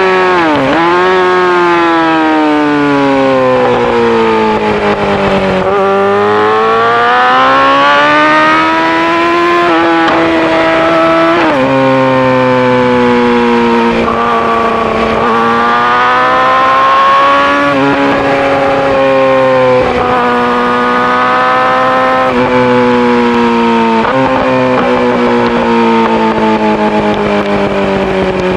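Yamaha R6 inline-four sport bike with an Akrapovic full exhaust system, ridden hard on a racetrack. The engine note climbs under acceleration and drops in sudden steps at each gear change, and falls away sharply twice, once near the start and once about six seconds in, as the bike slows.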